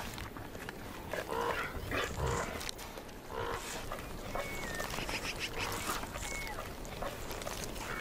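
Gray wolves feeding on a fresh carcass: rough growling and snarling mixed with irregular tearing and chewing of meat.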